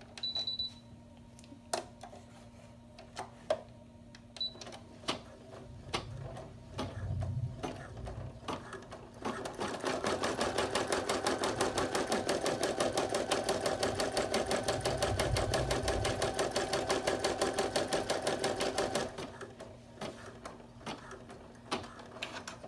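Computerized embroidery machine running a placement stitch. A short high beep comes near the start, then a few seconds of light clicking, then about nine seconds of rapid, steady needle stitching that stops well before the end.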